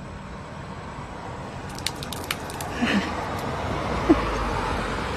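Outdoor street noise that swells near the end, as of a vehicle passing, with a few sharp clicks about two seconds in and a couple of brief vocal sounds from the man.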